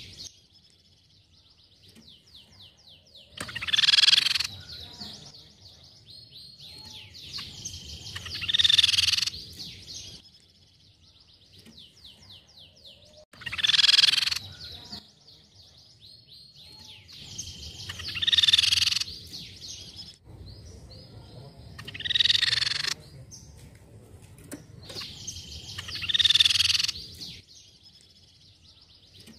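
Crescent-chested babbler (tepus pipi perak) calling. There are six loud, roughly one-second phrases, one every four to five seconds, with a fainter fast rattling trill between them.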